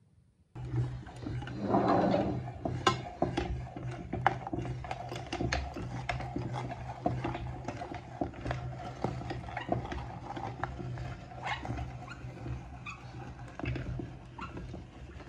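Scattered metal clicks and knocks from a cast-iron hand meat grinder being handled and put together, over a steady low hum that starts abruptly about half a second in.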